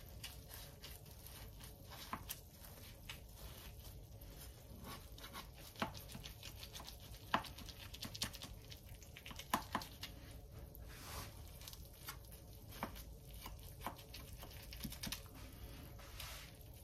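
White plastic slotted spoon cutting and scraping through the cheese-topped crust of a baked cod casserole in a glass baking dish: faint, scattered clicks and crackles, one every second or so.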